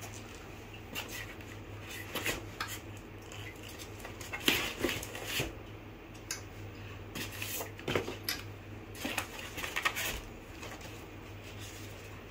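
Foam packing and white plastic parts of a microscope being handled in a cardboard box: irregular scrapes and light knocks, the sharpest about four and a half and eight seconds in, over a steady low hum.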